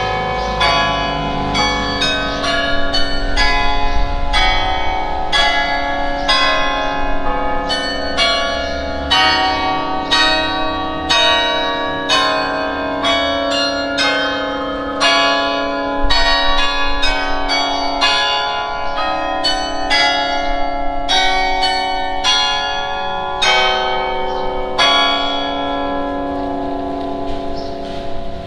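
Carillon playing a melody with chords: tuned bronze bells struck a few times a second, each note ringing on and overlapping the next.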